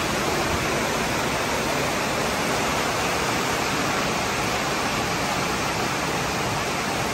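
Heavy monsoon-like rain pouring down steadily, a dense and even rush of water.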